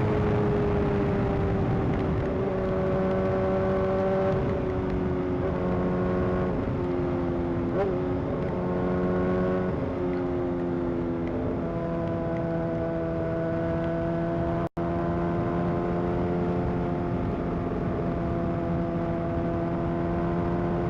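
Honda CBR600's inline-four engine running at a steady cruise with wind noise, its pitch dipping and rising slightly a few times. The sound cuts out for an instant about two-thirds of the way through.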